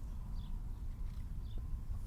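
Outdoor background sound: a steady low rumble with three faint, short, high chirps, like distant birds.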